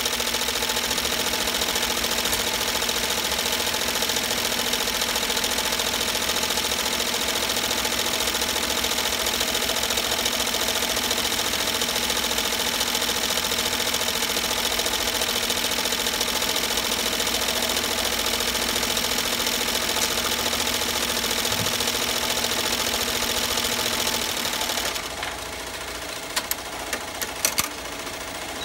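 Commercial embroidery machine running at speed, stitching down a sublimated twill applique: a steady, fast needle clatter. About 25 seconds in the sound drops off to a quieter hum, with a few sharp clicks near the end.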